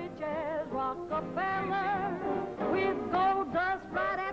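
Live jazz music with piano accompaniment under a melody line sung with vibrato.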